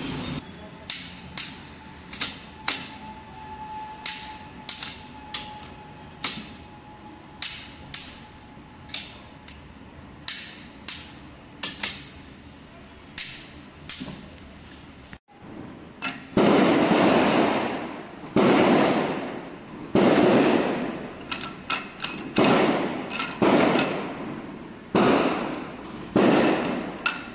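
Torque wrench ratchet tightening the cylinder head bolts to torque: sharp single clicks about once a second, then, after a brief break, rattling ratchet strokes, each about a second long, repeating about once a second.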